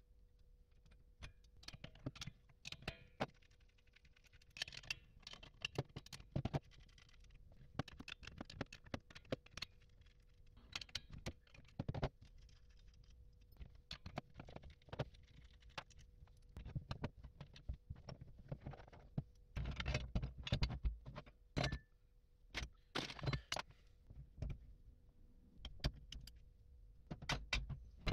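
Irregular metallic clicks, clinks and scrapes of a screwdriver and small steel parts as a hydraulic floor jack is worked on by hand. A busier stretch of louder knocks and rattles comes about two-thirds of the way through.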